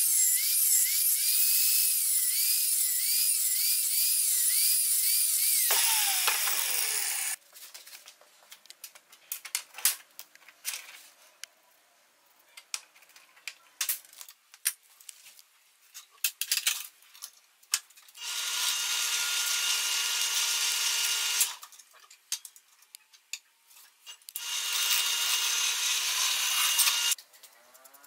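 Angle grinder with a cutting disc cutting through iron plate held in a bench vise, its pitch wavering under load. About six seconds in it is switched off and spins down with a falling whine. Then small metal parts clink and tap, and near the end come two steady bursts of a power tool, about three seconds each.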